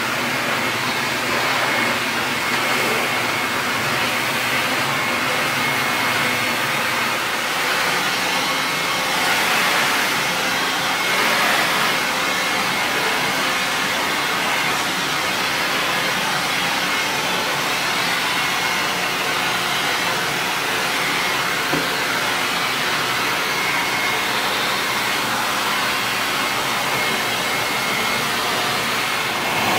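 Toshiba VC-8300 canister vacuum cleaner running steadily: a continuous rush of suction air with a thin, steady high whine from the motor.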